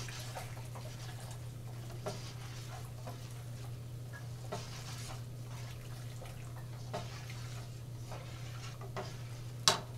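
Just-boiled water poured from a stainless saucepan into a bowl of flour batter, under a low steady hum. A single sharp metallic knock comes near the end.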